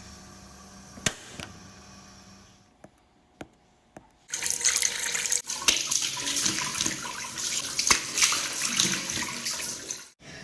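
A few faint clicks, then water running in a loud, steady rush from about four seconds in until it cuts off near the end.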